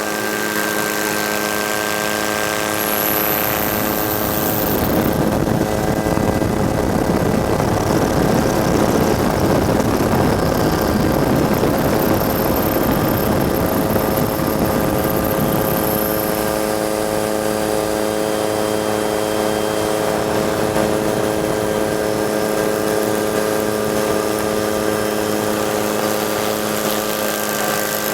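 Helicopter running steadily: a constant droning hum made of several steady tones, with a louder rushing noise that swells for about ten seconds in the middle.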